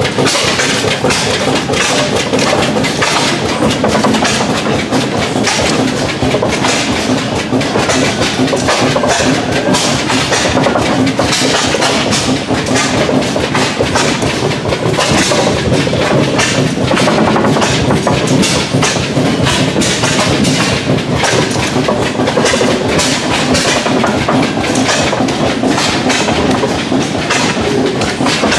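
Cast-iron oilfield rodline power turning, driven by a 20 HP Superior engine, with a steady, rapid mechanical clatter from its gearing and the jerk-line rods.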